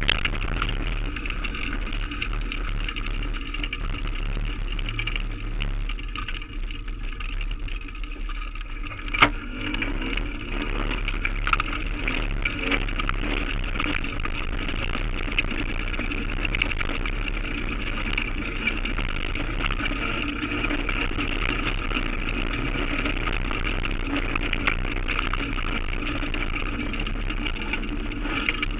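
Bicycle riding over paving stones, heard through a handlebar-mounted camera: a steady rattling road noise, with one sharp click about nine seconds in.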